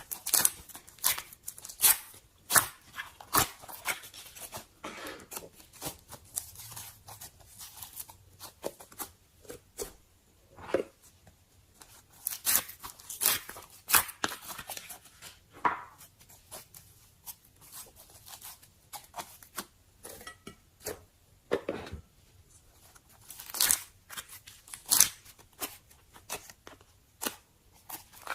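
Slime being squished and stretched by hand, giving irregular crisp pops and crackles.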